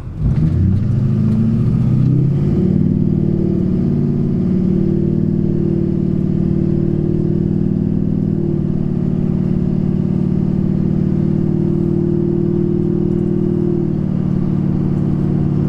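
Duramax 6.6-litre V8 turbo-diesel accelerating a pickup at quarter throttle, heard from inside the cab. The engine note climbs over the first couple of seconds, then holds fairly steady with small steps as the Allison 1000 six-speed automatic, fitted with a Transgo shift kit, shifts up through the gears.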